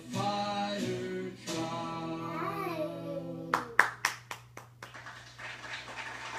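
Children's sing-along song playing from a TV: a singer holds the closing notes, then about six quick hand claps, about four a second, come in at about three and a half seconds, and the song stops.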